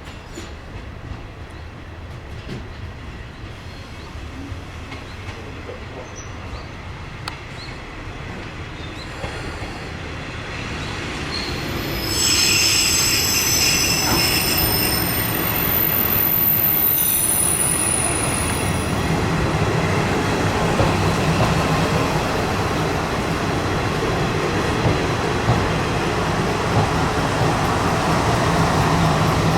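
Kanto Railway Joso Line diesel railcar running on the track, growing steadily louder. A high, steady wheel squeal starts about twelve seconds in and lasts several seconds. After that the engine and wheel-on-rail noise stay loud.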